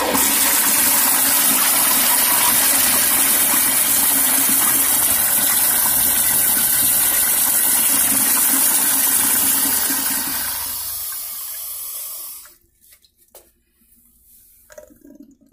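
Flushometer-valve toilet flushing: a loud, steady rush of water that eases off about ten seconds in and shuts off sharply a couple of seconds later as the valve closes.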